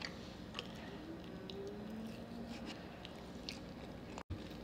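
Close-up chewing of food, with short wet mouth clicks a few times.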